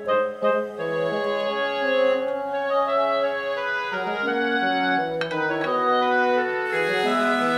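Background instrumental music: slow, held chords that change every second or so.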